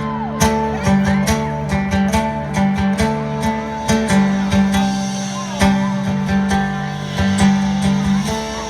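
Live country band playing the instrumental intro of a song: guitars over a steady beat.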